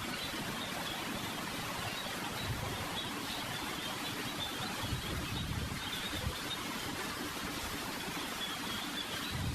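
Steady background hiss with faint, uneven low rumbles and no speech: the room and recording noise of a quiet meditation pause.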